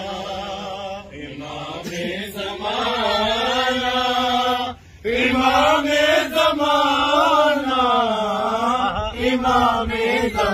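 Male voice singing a long, wavering melismatic phrase of an Urdu manqabat (devotional song), with a steady low hum underneath. There is a brief break for breath about five seconds in.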